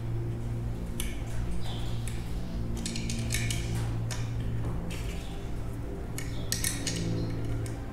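Scattered metallic clinks and rattles of bolts, lock washers and flat washers being fitted and tightened into a steel light-bar mounting bracket with a hand tool, in short clusters about a second in, around three seconds in, and again near seven seconds, over a steady low hum.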